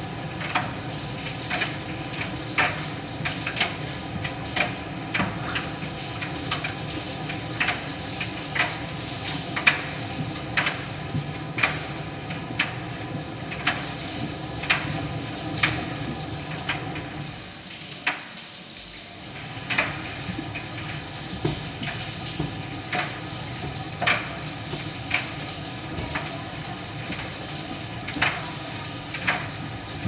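Miele PT 5136 tumble dryer running: a steady hum of the motor and drum, with irregular clicks and knocks from laundry tumbling inside. The hum drops away briefly about eighteen seconds in, then resumes.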